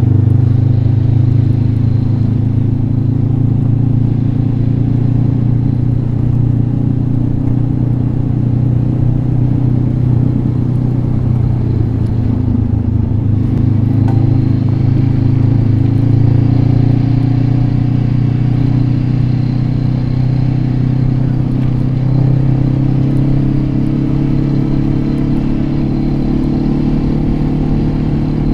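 Motorcycle engine running at a steady pace under way, a low drone that rises and falls slightly in pitch.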